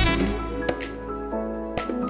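Background electronic music: the heavy bass beat drops away at the start, leaving sustained synth notes with a couple of sharp percussive hits.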